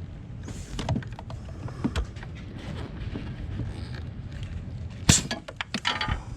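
A plastic auto body trim tool prying at a brake booster check valve seated in its rubber grommet: scattered clicks, creaks and knocks, with a louder burst of clatter about five seconds in.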